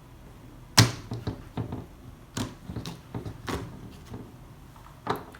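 A sharp click a little under a second in, then a string of lighter, irregular clicks and scrapes as the locking ring is worked off an SCM CNC vacuum suction pod.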